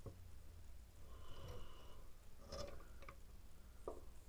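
Quiet handling of the opened GX200-clone engine, its piston and conrod turned by hand in the crankcase. There is a faint short squeak about a second in and a couple of light metal clicks later.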